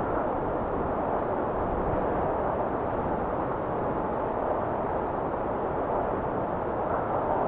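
Steady wind blowing, a continuous even rush.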